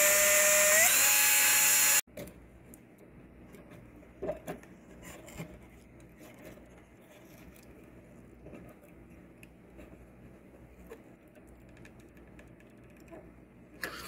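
Cordless drill/driver spinning as it backs out the mounting screw of a wall GFCI outlet. Its whine steps up in pitch about a second in and stops suddenly about two seconds in. After that come a few faint clicks and knocks as the loosened outlet is handled and pulled from its metal wall box.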